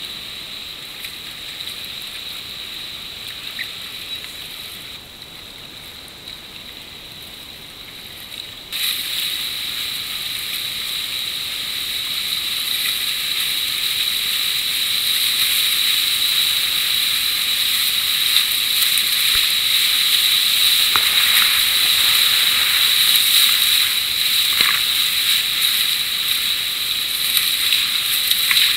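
Rushing whitewater and water splashing around a kayak running a rapid, picked up by a camera on the boat, so the sound is thin and hissy with no low end. The rush jumps louder about nine seconds in and keeps building. A thin steady high tone runs underneath.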